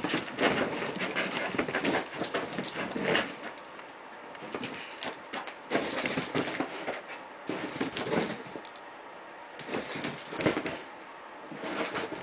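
Five-week-old basenji puppies play-fighting, with puppy vocal sounds and the scuffle of paws and bodies on a blanket. It comes in busy bursts separated by short lulls.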